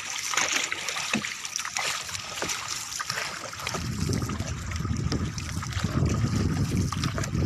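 Water splashing and lapping against a small boat. A low, steady rumble comes in about halfway through and stays.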